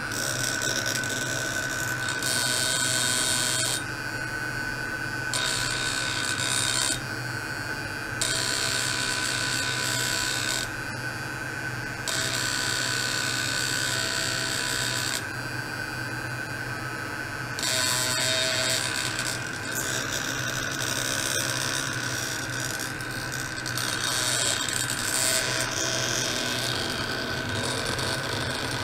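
Ultrasonic probes on metal rods, driven by a function generator in sweep and pulse oscillation, giving off a steady high whine over a low hum. A buzzing hiss switches on and off every second or two.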